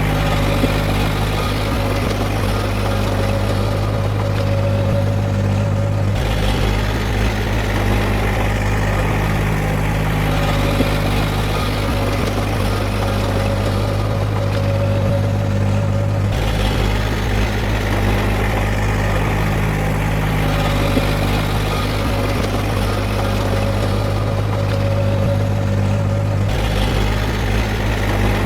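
Heavy diesel engine of earthmoving machinery running steadily. The tone shifts abruptly about every ten seconds.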